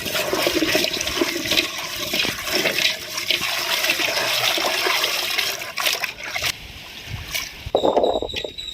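Water splashing and pouring steadily, then stopping about six and a half seconds in.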